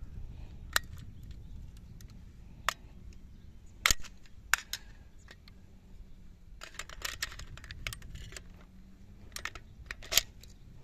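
Sharp metallic clicks and clacks from handling a chrome AK-pattern gun and its curved steel magazine, with a quick run of rattling clicks in the middle. Near the end a loud click as the magazine is pushed back into the magazine well.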